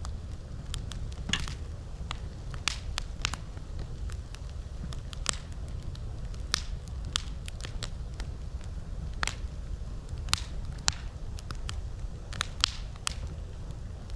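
Campfire crackling: irregular sharp pops and snaps of burning wood, a few louder than the rest, over a steady low rumble.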